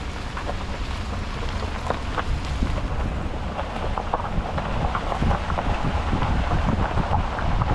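Wind buffeting the microphone outdoors, a steady low rumble with scattered crackles and ticks, growing a little louder near the end.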